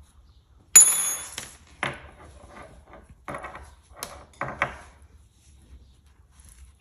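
Hands working crochet: a sharp click with a brief high ringing about a second in, then several short rustles and scrapes of the hook and yarn.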